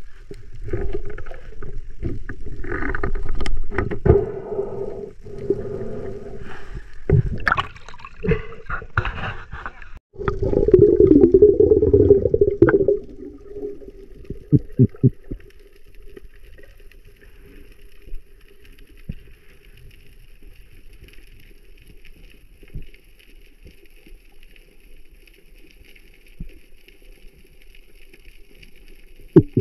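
Underwater water noise and gurgling around a spearfisher's camera, with knocks and clicks, loudest in a rush of water about ten to thirteen seconds in. After that it settles to quieter underwater ambience with a faint steady hum and scattered clicks.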